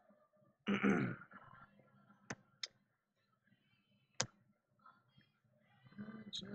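Sharp clicks of trading cards being flipped and snapped on a stack, three of them a second or two apart. A short vocal murmur, like a sigh, comes about a second in.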